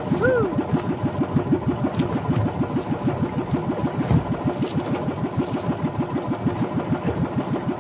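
Engine of a motorized outrigger boat running steadily under way, a rapid, even chugging.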